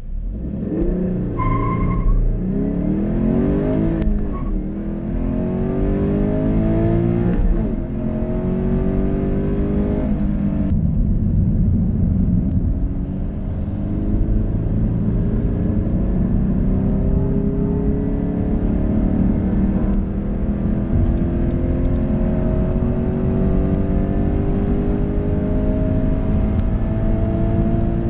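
Toyota GT86's 2.0-litre Subaru FA20 flat-four boxer engine accelerating hard, heard from inside the cabin. The revs climb and drop back at three quick upshifts in the first eleven seconds, then rise in one long, steady climb in fourth gear to about 7,000 rpm.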